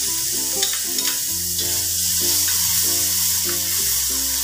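Minced garlic sizzling in hot cooking oil in a wok while a spatula stirs it, a steady high hiss, with background music underneath.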